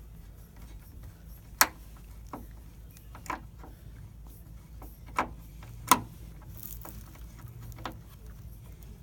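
Several sharp clicks and knocks, about five spread out, the loudest about a second and a half in and near six seconds. They come from handling the plastic turn signal lens assembly and tools as the lens is fitted, over a faint steady low hum.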